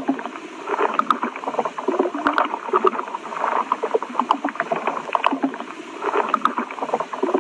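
Underwater bubbling and gurgling: a continuous stream of blips, pops and low gurgles.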